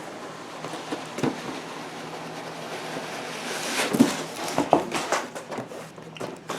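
Cardboard box being opened and handled: scraping and rustling that builds about three seconds in, with scattered clicks and several sharp knocks soon after.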